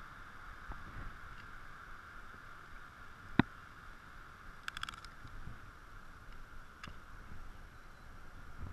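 Handling noises over a steady high background hiss: one sharp, loud click about a third of the way in, then a brief rattle of quick clicks a second later and a fainter click near the end, from handling a small retractable tape measure while measuring a sunfish.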